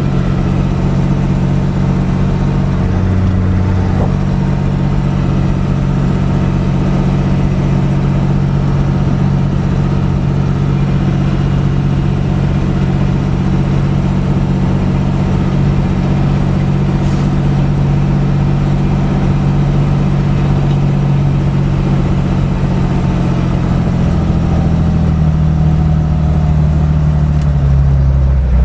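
Fendt Favorit 611 LSA Turbomatik tractor's six-cylinder diesel engine running steadily under load while pulling a mounted four-furrow plough. The engine note drops lower near the end.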